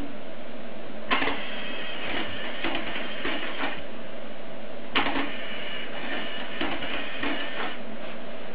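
A LEGO useless machine's electric motor and plastic Technic gear train running in two spells of clattering whir. Each spell starts with a sharp click, about a second in and again about five seconds in, and lasts some two and a half seconds: the box's arm going out to flip its switch back off and then pulling in again.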